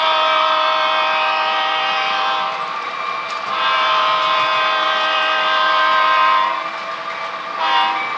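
Multi-chime diesel locomotive horn sounding two long blasts and a short one, the opening of the grade-crossing signal (long, long, short, long).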